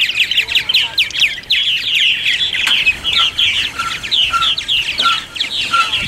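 A large colony of purple martins chirping and chattering, many rapid short falling notes overlapping without pause. About halfway in, a short even note starts repeating a little under twice a second.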